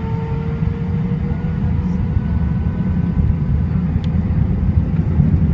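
Airbus A319 airliner's jet engines running at low thrust during taxi, heard inside the cabin: a steady low rumble that grows slowly louder, with a faint whine rising a little in pitch early on and fading.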